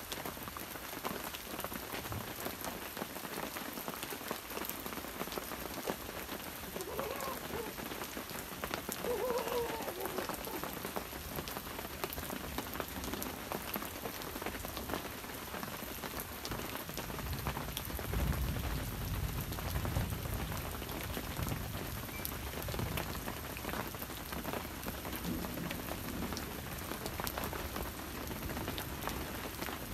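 Steady rain falling, with many separate drops striking close by. About 17 seconds in a low rumble of distant thunder comes in, then fades over about five seconds.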